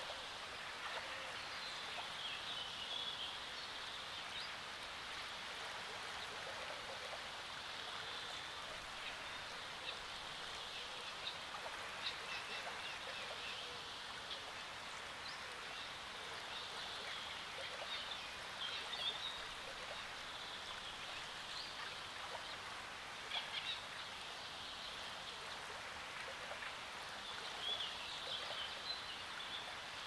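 Small waves lapping and splashing steadily at a sandy lake shore among reeds, with birds chirping briefly in the background a few times.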